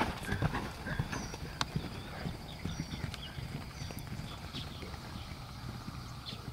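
Hoofbeats of a horse on sand arena footing, dull thuds loudest about the first second as it passes close, then fading as it moves away.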